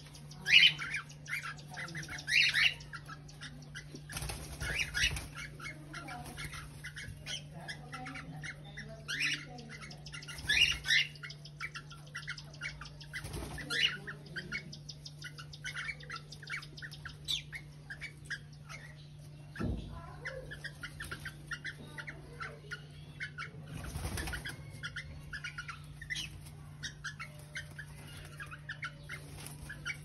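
Cockatiels in an aviary: a handful of loud calls stand out over a constant twitter of short chirps. Bursts of wing flapping come around four seconds in and again near the end of the second third, as the mating pair flutters on the perch.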